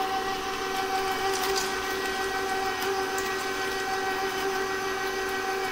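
KitchenAid stand mixer motor running steadily, its wire whisk turning through muffin batter: an even, unchanging motor whine.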